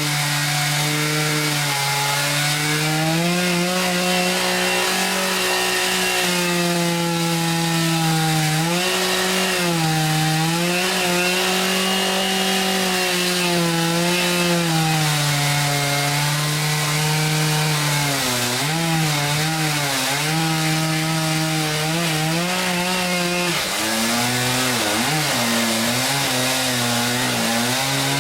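Chainsaw on an Alaskan sawmill running at high revs while ripping lengthwise through a large log. Its pitch wavers and sags as the chain bogs in the cut, dipping lower and more often in the last third.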